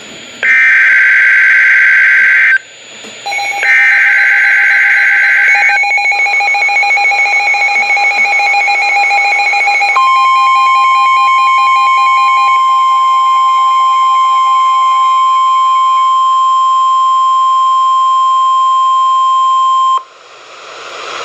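NOAA Weather Radio Emergency Alert System broadcast carrying a flash flood warning. The SAME digital header plays as two screeching data bursts of about two seconds each. The steady single-tone NWR warning alarm (1050 Hz) then sounds for about ten seconds. A second, pulsing alert tone overlaps from the second burst until partway through the alarm.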